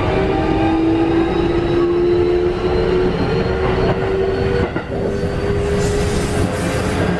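Running sound inside a Keikyu 1500-series electric train car: steady rumble of wheels and car body with the whine of its Mitsubishi IGBT-VVVF inverter and traction motors, the whine slowly rising in pitch as the train picks up speed. The loudness dips briefly a little past the middle.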